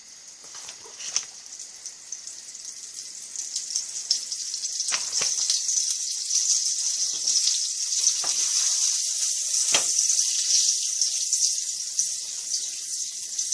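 Butter melting and sizzling in a hot frying pan. The hiss builds over the first few seconds and then holds steady, with a few light knocks.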